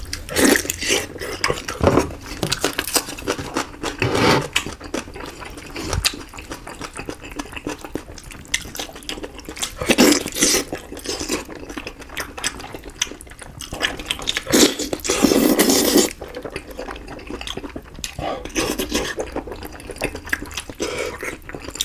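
Close-miked wet eating sounds: chewing, sucking and lip-smacking on sinewy cooked tuna head, with the squelch of fingers pulling the meat apart in oily sauce. Irregular wet bursts come throughout, the longest about fifteen seconds in.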